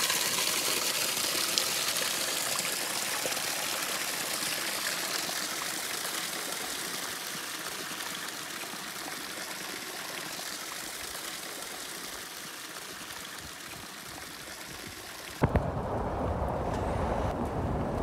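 Water gushing from a pipe outlet and splashing onto rock: a steady rushing splash that slowly fades. About three seconds before the end it cuts off suddenly with a click, and a low rumbling noise follows.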